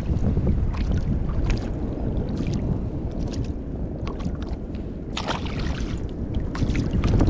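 Wind buffeting the microphone over small waves lapping against a kayak's hull, with scattered short splashy clicks and a cluster of them about five seconds in.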